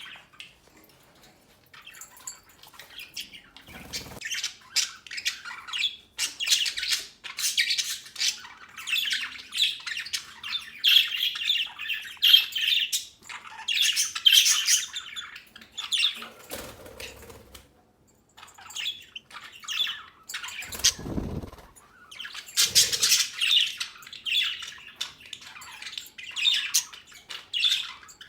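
Budgerigars chattering: many quick chirps and squawks overlapping, with a short lull about two-thirds of the way through. A few dull thumps sound under the calls.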